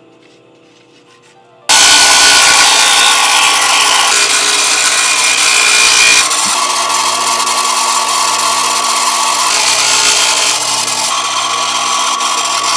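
Small bench-mounted abrasive wheel grinding a bamboo rod section held against it: a loud, steady grinding over a motor hum. It starts suddenly about two seconds in and changes in tone about six seconds in.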